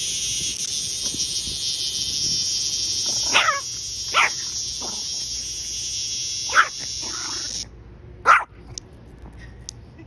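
A cicada buzzing loudly and steadily, cutting off suddenly about three quarters of the way through. A Yorkshire terrier gives four short, sharp barks over it, the last and loudest just after the buzz stops.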